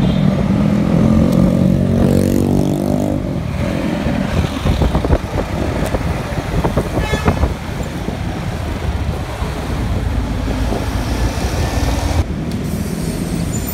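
Road traffic passing close: a large vehicle's engine goes by in the first few seconds, its pitch falling, over a steady low rumble of traffic. A few short taps and knocks come around the middle.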